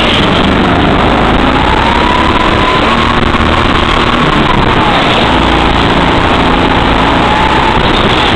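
Go-kart engine running under throttle as heard from on board, its whine rising over the first few seconds, then dropping about five seconds in and staying lower. Loud and steady.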